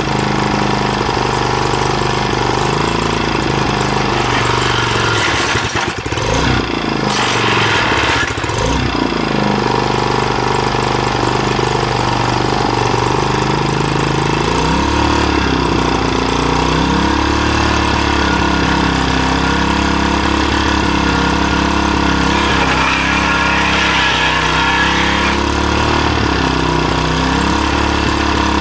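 Small 3.5 hp gasoline engine running steadily. About halfway its pitch shifts and then wavers unevenly.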